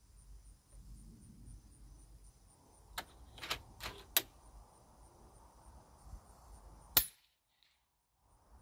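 A quick run of four sharp mechanical clicks, the air rifle's action being cycled to load a pellet, then about seven seconds in a single sharp, loud shot from the .30-calibre SKOUT Epoch PCP air rifle firing a 45-grain pellet.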